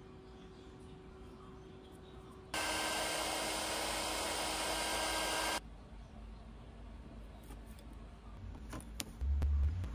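Small 300 W heat gun blowing hot air onto a sticker to soften its adhesive: it comes on abruptly, runs steadily for about three seconds with a steady whine, and cuts off abruptly. Near the end come a few light clicks and a short low thump.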